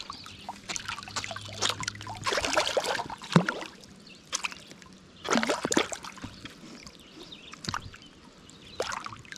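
A hooked smallmouth bass splashing at the surface of a river as it is landed and grabbed by hand. The splashes come in irregular bursts, several in a row a couple of seconds in, then more spaced out.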